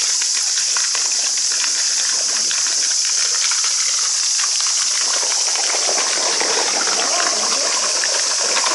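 Koi splashing and slurping at the surface of a pond as they crowd the edge, the small splashes growing busier from about halfway through, over a steady high hiss.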